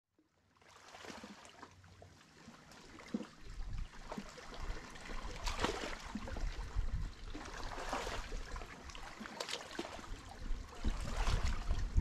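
Small sea waves washing against the shore, swelling and drawing back every couple of seconds. The sound fades in over the first second, and a low rumble joins about three seconds in.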